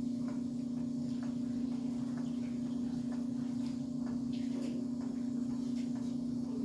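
A steady low hum with faint, scattered light clicks, as of a folding pocket knife being handled.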